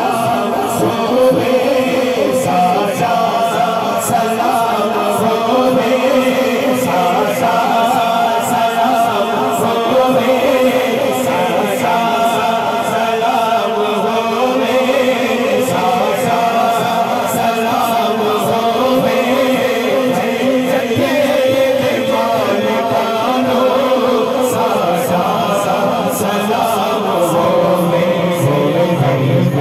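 A man's voice chanting a melody into a microphone over a loud public-address system, with long held notes.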